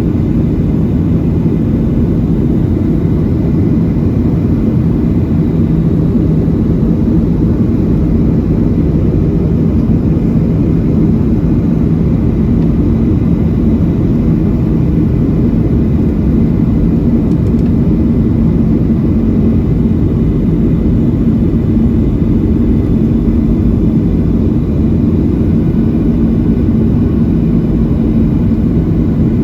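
Cabin noise inside a Boeing 737-700 in flight: a steady, loud roar of CFM56-7B jet engines and rushing air, with a low hum whose pitch shifts slightly upward about halfway through.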